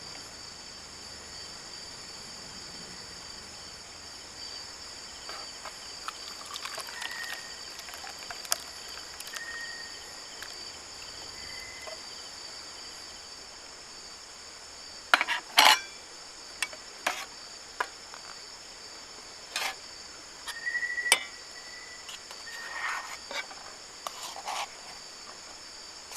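Steady high-pitched chirring of crickets and other insects, with a few sharp clinks and knocks of handled metal gear from about halfway through.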